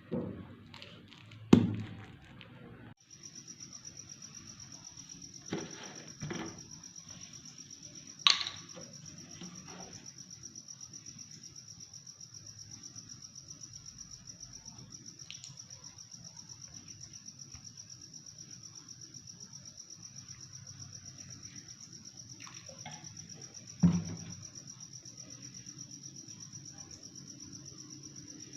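A cricket chirping, a steady high-pitched pulsing trill that starts abruptly about three seconds in. It is broken by a few single knocks, like a utensil or pot set down in the kitchen, the loudest near the start and a little after the middle.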